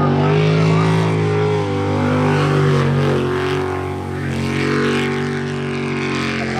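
Sprint boat engine running hard during a race run, its pitch rising and falling with the throttle.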